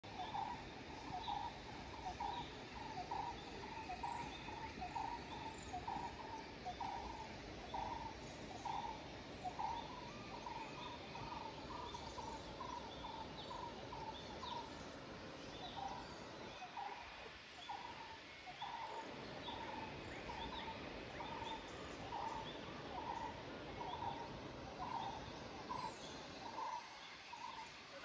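Jungle birds calling: one bird repeats a short low note about twice a second throughout, with scattered higher chirps from other birds over a steady background hiss.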